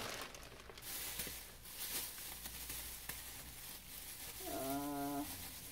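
Faint rustling of fabric and a plastic bag as a curtain panel is pulled out, with a short, low, hummed voice sound about four and a half seconds in.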